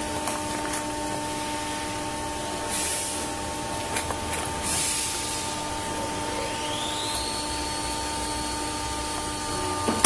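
Clear sealing film and plastic lunch-box trays crinkling briefly twice as they are handled, over a steady machine hum with a few fixed tones. A rising whine settles into a steady tone past the middle, and a sharp knock comes at the very end.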